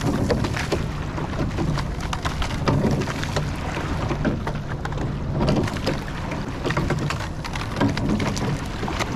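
Eight-oared rowing shell paddling lightly: water rushing along the hull, with repeated knocks of the oars and splashes of the blades.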